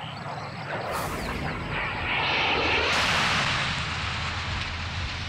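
Iskander-M missile warhead exploding on its target: a rush of noise builds about two seconds in, then a loud blast at about three seconds that trails off into a deep rumble.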